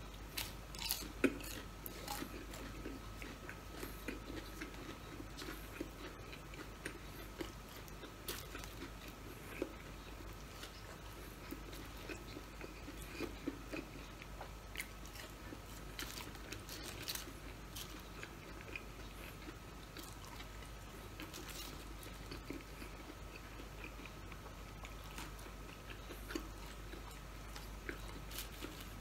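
A person chewing and biting breaded chicken nuggets and French fries up close, with soft mouth noises and small crunches and clicks scattered throughout. A faint steady high whine runs underneath.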